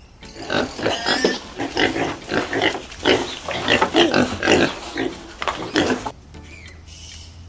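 Pig grunting repeatedly, many short rough grunts in quick succession, stopping about six seconds in.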